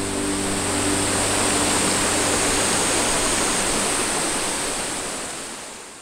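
Shallow stream water rushing steadily, with the tail of background music dying away in the first second or so; the sound fades out near the end.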